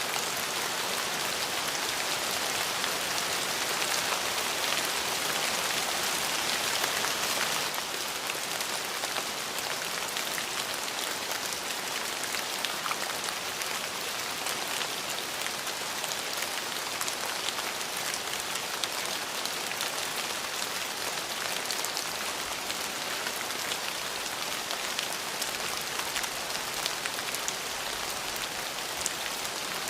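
Steady rain falling, a dense even hiss full of fine, close drop ticks, a little louder for the first seven or eight seconds and then easing slightly.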